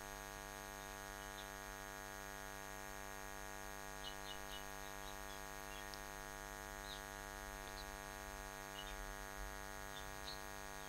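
Steady electrical mains hum picked up by the recording, with faint, short, high-pitched chirps scattered through the second half.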